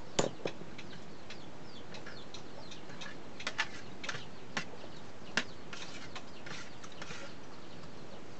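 Scattered sharp clicks and clinks of a meal eaten by hand, shells and dishes handled on the table, the loudest about a quarter second in. Chickens cluck in the background.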